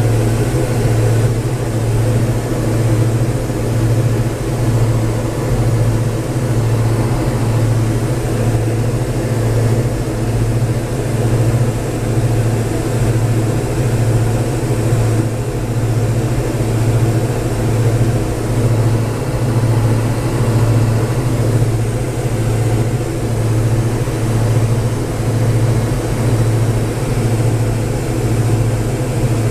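Cabin drone of a Diamond DA42's two diesel engines and propellers in flight, heard inside the cockpit. It is a steady low hum that swells and fades about once a second, the beat of the two propellers turning slightly out of step at 2230 and 2250 rpm.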